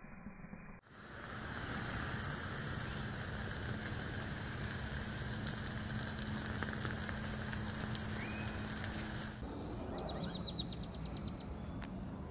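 Lithium battery of a crashed DJI Mavic Pro drone venting in thermal runaway: a steady hiss with fine crackling as it smokes. The hiss starts abruptly about a second in and turns softer near the end.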